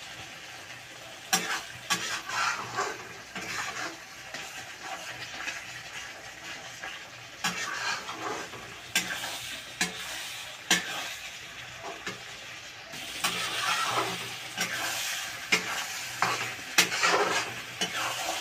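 Steel spatula scraping and clicking against a kadai as a thick onion-and-spice masala is stirred, over a steady sizzle of frying. The masala is being fried until the oil separates; the stirring gets busier in the second half.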